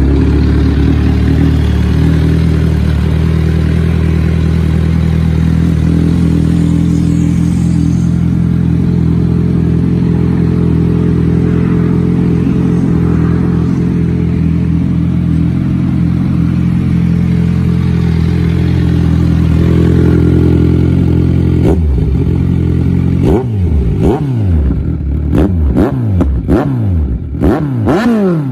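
Kawasaki Z1000 inline-four engine breathing through an Austin Racing GP1R aftermarket dual exhaust, idling steadily. About twenty seconds in it is revved in a series of quick throttle blips, each rising and falling in pitch, coming faster near the end.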